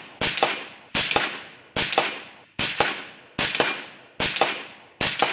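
AR-15 rifle fired in semi-auto, seven shots at a steady pace of a little over one a second, each shot trailing off in a ringing echo.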